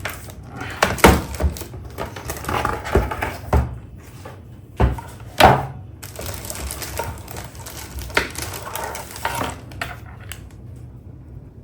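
Unboxing of a wired Logitech keyboard: irregular knocks, thuds and rustling as the keyboard and its packaging are handled. The loudest knocks come about a second in and about five and a half seconds in.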